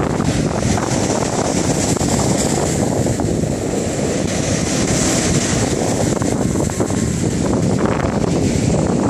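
Sea waves breaking and washing in foam against a concrete sea wall's steps, under a loud, steady rumble of wind buffeting the microphone.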